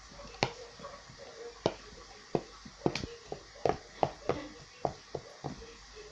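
Ripe bananas being mashed by hand in a bowl: irregular soft knocks and squishes, roughly one or two a second.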